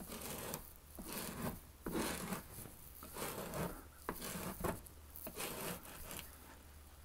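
Putty knife scraping old scenery up off a homosote board: a series of short rasping scrapes, about one every half second to second, trailing off near the end.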